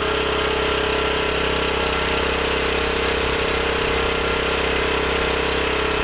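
Small portable gasoline generator engine running steadily with no load, free spinning at the speed its governor holds.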